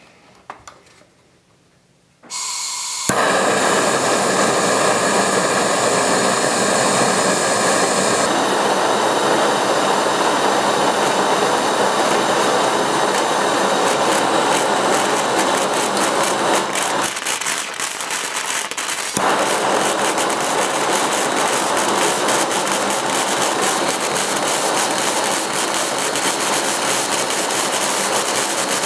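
Wilesco toy steam engine running fast: a loud, steady hiss of steam with a rapid, even exhaust beat, starting about three seconds in after a few faint clicks. The level dips briefly for a couple of seconds past the middle.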